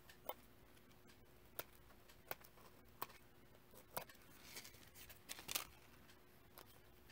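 Small craft scissors snipping the metallic thread strings of a card: a series of quiet, sharp snips at uneven intervals, with some faint rustling about four and a half to five and a half seconds in.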